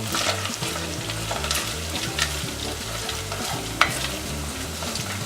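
Sliced onions and whole spices frying in oil in a pot, sizzling steadily, with a spoon stirring and scraping against the pot and a few sharp clicks, the loudest about four seconds in.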